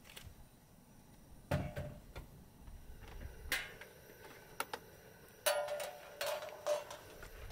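Scattered sharp clicks and knocks of camp gear being handled. There is a thud about a second and a half in and a quick run of three clacks near the end.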